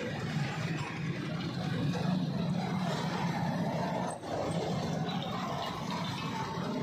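A steady low engine hum, with a brief dip just after four seconds in.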